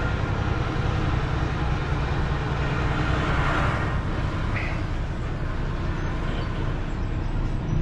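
Steady diesel engine drone and road noise of a DAF heavy recovery truck pulling a fully loaded 26-tonne lorry on tow up and over a bridge.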